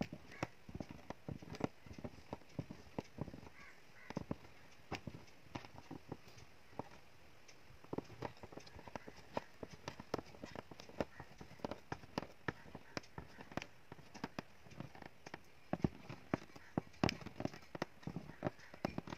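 Aari hook punching in and out of fabric stretched tight on an embroidery frame, making irregular sharp taps and clicks, several a second, as a leaf is filled with thread stitches.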